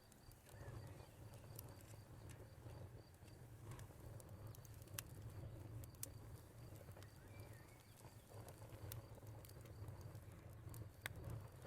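Quiet wood fire crackling, with scattered sharp pops over a soft low rumble. A cricket chirps in a steady pulsed trill for the first few seconds, and a faint short bird call comes past the middle.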